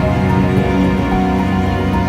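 Background music: sustained synth-like notes over a steady low bass.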